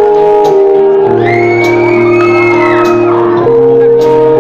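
Live pop band playing loud, with held chords over electric guitar that change every second or so. A high voice shouts over the music for about two seconds in the middle.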